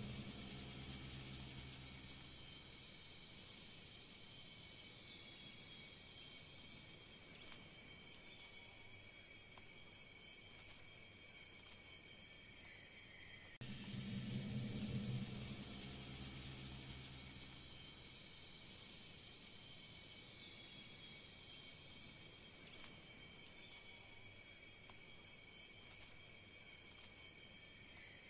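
Looped background soundtrack: a steady, high, insect-like trill with a low drone that swells up for about two to three seconds at the start and again about fourteen seconds later, the same passage repeating.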